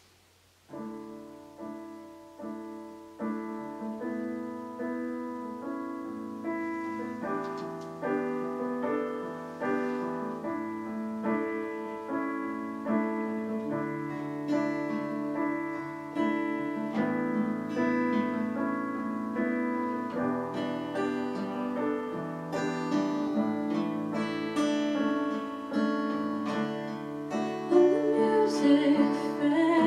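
Slow piano introduction to a worship song, soft chords and single notes struck and left to ring. A singing voice comes in near the end.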